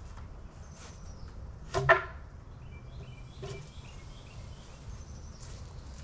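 Footsteps on dry grass, with one loud, ringing wooden knock about two seconds in as a wooden beehive box is set down, and a lighter knock a second and a half later.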